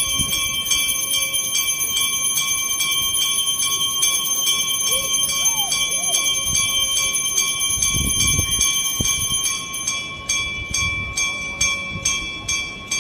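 Temple aarti bell rung rapidly and without pause, about four or five strokes a second, its metallic ring held over the strokes. The strokes grow more spaced near the end.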